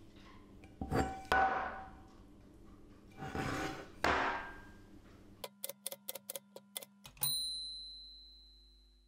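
Cast iron skillet knocked and set down on a wooden workbench a few times, each knock leaving a short metallic ring. A little past halfway comes a manual typewriter: about eight quick keystrokes, then the carriage bell dings once and rings out slowly.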